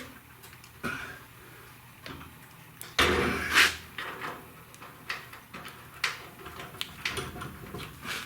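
Handling noises as a wheel hub is worked onto a freshly greased shaft: scattered metallic clicks and knocks, with a louder scrape about three seconds in.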